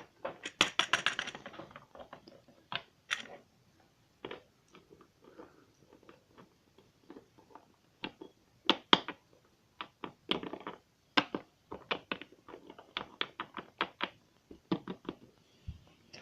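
Small plastic toy figurines being handled and set down on a hard surface: irregular light clicks and taps, sometimes several in quick succession.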